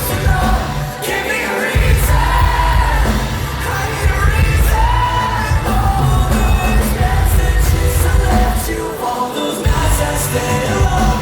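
A live rock band playing loudly with a singer, heavy bass and drums. The bass and drums drop out briefly twice: just before two seconds in, and again for about a second near the end.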